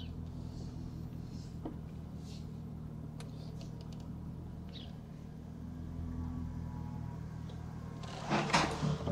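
Jaguar XK8's V8 engine running steadily at low speed, with a brief noisy rush near the end.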